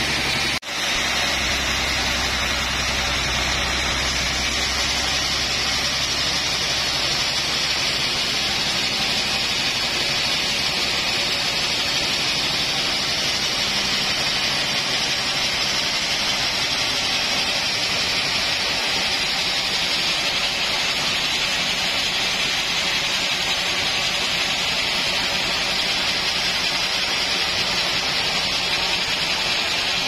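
Band sawmill running steadily while a large trembesi (rain tree) log on the carriage is sawn, giving a continuous loud hiss of blade and machinery. A deeper hum underneath fades about eight seconds in.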